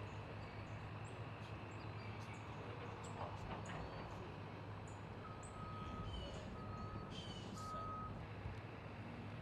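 A vehicle's reversing alarm beeping three times, about a second apart, with scattered short high chirps over steady background noise.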